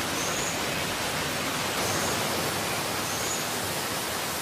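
Steady rush of water, a flowing river in the wet season, with three faint short high chirps over it.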